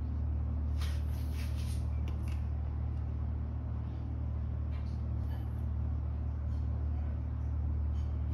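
A steady low hum throughout, with a few soft scrapes and light clinks of a metal spoon scooping mushroom gravy from a bowl and spreading it over the patties.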